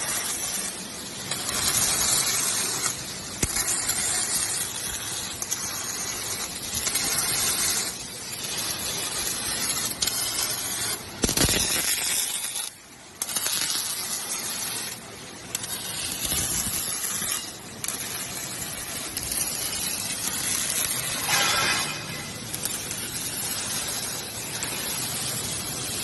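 Electric arc welding on steel scaffolding parts: a loud hissing, spitting noise that runs in stretches of a few seconds, breaking off and starting again, with a brief drop about thirteen seconds in.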